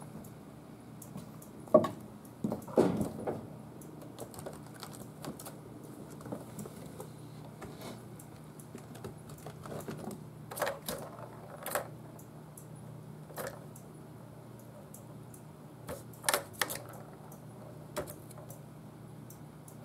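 Kittens playing: irregular light clicks, taps and knocks of paws on plastic toys, including an orange ball-track tower toy, with a few louder knocks scattered through. A low steady hum runs underneath.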